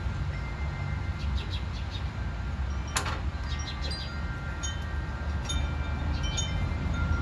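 Light metallic clicks and clinks as a drive belt is worked by hand onto a tiller's mule-drive pulley, with one sharp click about three seconds in, over a steady low rumble.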